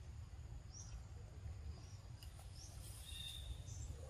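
Faint outdoor forest ambience: a few short high chirps and a longer held high whistle about three seconds in, over a steady low rumble.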